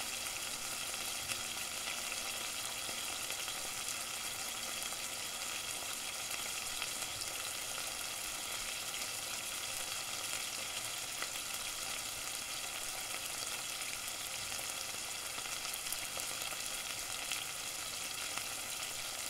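Food frying in a pan: a steady sizzle, with fine crackles and pops scattered through it.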